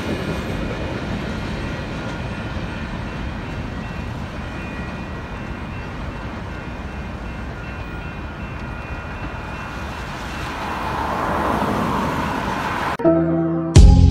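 Freight train of tank cars and boxcars rolling past, a steady rumble of wheels on rail that slowly fades as the last cars clear the crossing, with a swell of road traffic noise toward the end. Music starts abruptly about a second before the end.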